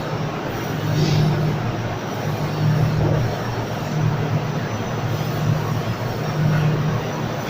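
Amada 3015 3000 W laser cutting machine running: a steady hiss with a low hum that swells and fades about once a second.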